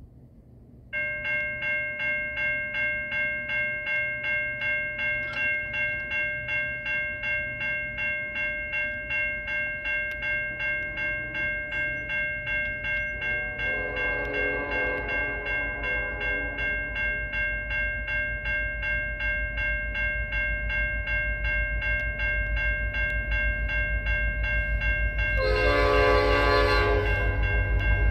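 A railway grade-crossing bell starts ringing about a second in and keeps a steady beat of about two and a half strokes a second. From about halfway the approaching CN EMD SD70M-2 locomotive blows its horn in a long blast, then again near the end, over a low rumble of the train that grows as it draws near.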